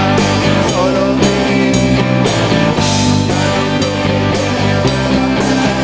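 Rock band playing live, electric guitars over a drum kit keeping a steady beat of about two strokes a second.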